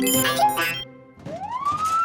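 Short cartoon music sting, then a cartoon fire truck's new siren winding up about a second in: the pitch rises and settles into one held tone. It is finally the right kind of siren sound but still too quiet.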